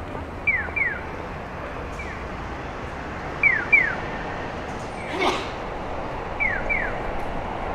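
Japanese pedestrian crossing signal sounding its electronic 'piyo' chick chirps: pairs of short falling chirps about every three seconds, answered by a fainter single chirp, over steady traffic hum. A brief louder sound comes about five seconds in.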